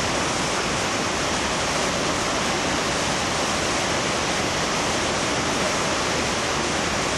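River water pouring over a weir and churning through a fish pass, a steady, unbroken rush of white water.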